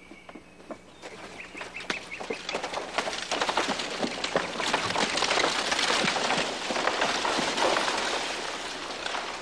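Horse-drawn buggy pulling away: a horse's hoofbeats and the wheels rolling on dirt, building up and then easing off near the end.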